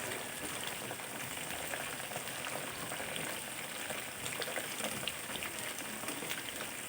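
Food frying in hot oil in a pan: a steady sizzle scattered with small crackles and pops.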